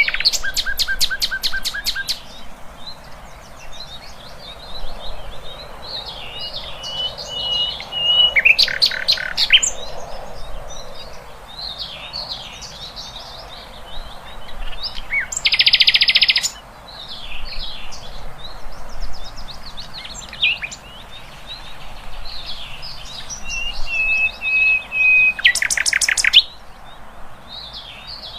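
Songbird chattering, a varied run of quick chirps and buzzy whistled notes, broken about four times by short, loud, rapid rattling trills. It is a masteran song recording of the kind played to contest songbirds for them to copy.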